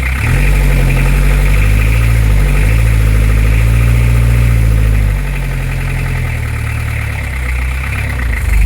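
Beta 50's small engine running with a rough, surging idle. Its speed climbs within the first second and holds high, with a brief dip and recovery around two and a half seconds in. It falls back to a low idle about five seconds in and starts to climb again near the end.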